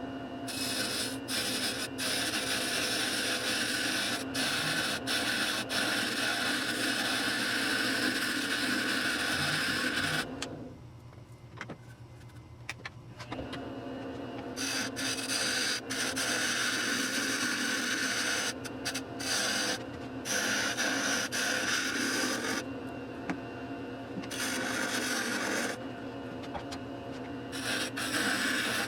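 WEN 8x12 benchtop wood lathe running while a turning tool scrapes and cuts a spinning piece of poplar. The cutting stops and starts, with a break of about three seconds near the middle and two shorter ones later.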